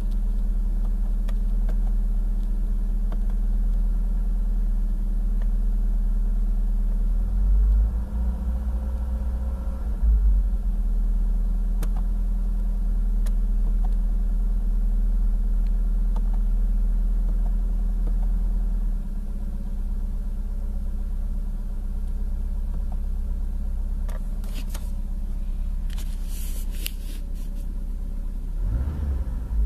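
Ford Scorpio Mk1's engine idling steadily with the car standing still, heard from inside the cabin. The engine note swells briefly about eight and ten seconds in, then settles a little lower.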